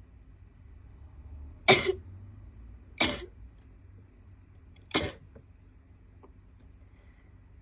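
A person sneezing three times in a row, each a short sharp burst, the first the loudest.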